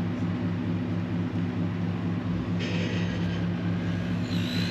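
Pickup truck engine running steadily at low speed, heard from inside the cab as it reverses a boat trailer down a launch ramp. Two brief higher-pitched noises come over it, one in the middle and one near the end.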